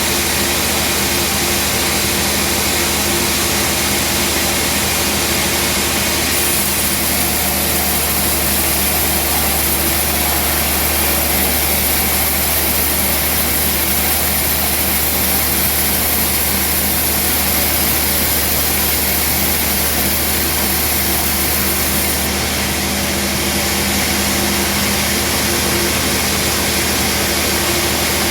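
Band sawmill running steadily, a constant machine hum with a high hiss that grows stronger from about six seconds in and eases back a little after twenty-two seconds.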